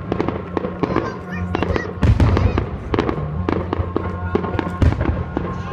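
Aerial fireworks bursting and crackling in quick succession, with louder booms about two seconds in and again near five seconds, over music playing.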